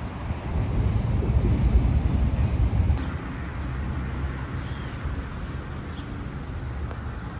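Wind buffeting the microphone, a rough low rumble for about three seconds, then a sudden change to a quieter, even outdoor hiss with a few faint high chirps.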